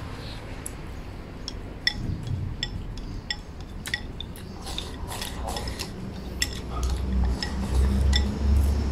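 Wooden chopsticks clinking and tapping against porcelain bowls during a meal of soup, many short ringing clicks at irregular intervals. A low rumble grows louder over the last two seconds.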